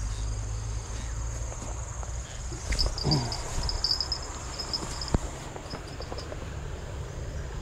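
Insects droning steadily in high pitch, with a second, pulsing insect call joining for about two seconds around three seconds in. A single sharp click comes about five seconds in.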